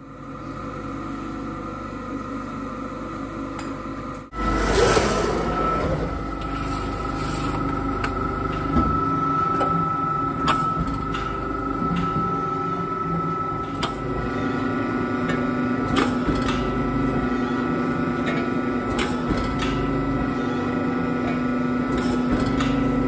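Amada APX 103 CNC press brake running with a steady hum and whine, stepping through a run of small bends in thin aluminium sheet, with a short knock every second or two as the ram strokes. The machine sound grows louder about four seconds in.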